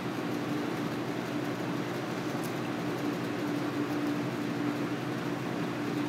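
Steady mechanical hum with one low, even droning tone and no change in level.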